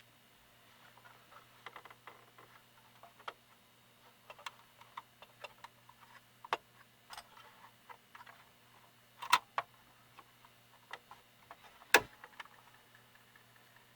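Irregular small clicks and taps of hands and a tool working on a jammed cassette deck mechanism, with two sharper clicks in the second half. A faint steady low hum sits underneath.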